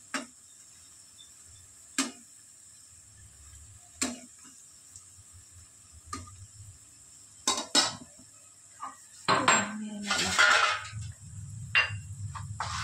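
Metal utensil knocking and clattering against a cooking pan: single sharp knocks about every two seconds, then a louder stretch of scraping and clatter about nine seconds in, with a few more knocks after it.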